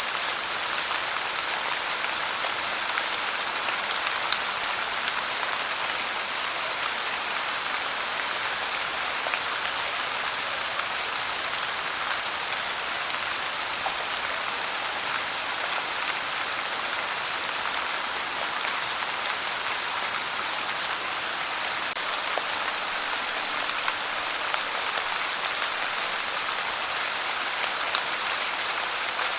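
Steady pouring rain: an even hiss with scattered drop ticks.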